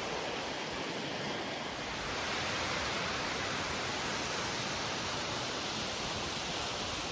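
A small waterfall: a steady rush of falling water.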